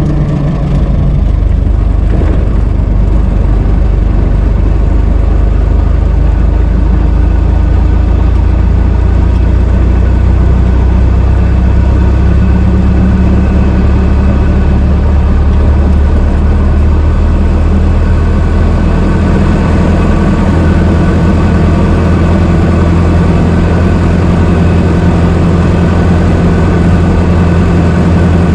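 Old car's engine running steadily, low-pitched and even.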